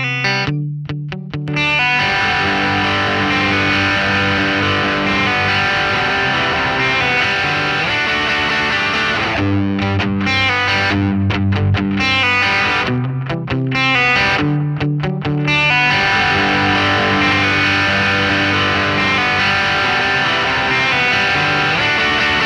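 Electric guitar played through a Tube Screamer-style overdrive pedal: a distorted rock part with a few short clipped chords at first, then sustained driven playing, broken by choppy stop-start chords in the middle.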